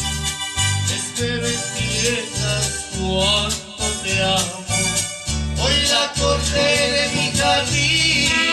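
Small mariachi group playing live: guitar strumming over a pulsing bass line, with trumpet.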